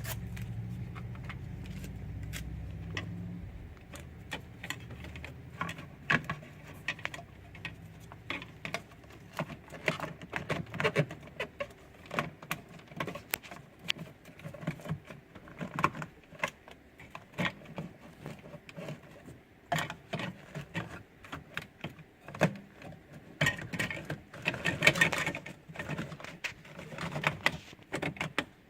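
Irregular clicks, taps and light knocks of hands working on plastic steering column trim covers, with a low hum for the first few seconds.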